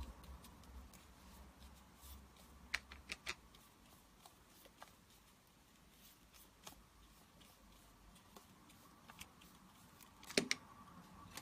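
Quiet handling of paper with a glue brush on a craft mat: soft brushing and rustling, a few light clicks and taps, and one sharper tap near the end.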